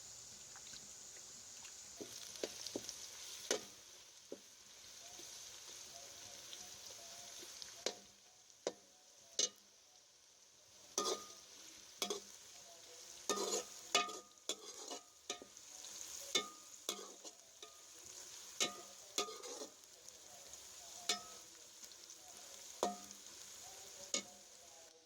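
Bitter gourd and potatoes frying in a pan with a steady sizzle, stirred with a spoon that knocks and scrapes against the pan every second or so, more often in the second half.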